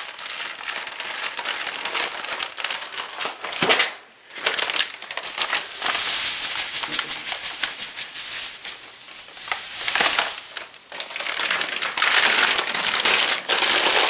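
Plastic sugar bags crinkling and rustling as brown sugar is shaken out and granulated sugar is poured into a pot of mashed sweet potatoes, in several stretches of rustling hiss.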